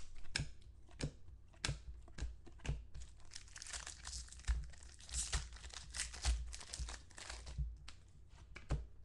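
Football trading cards from a Finest mini box being handled and flipped through, with a plastic wrapper crinkling and tearing. The result is a run of short rustles and clicks.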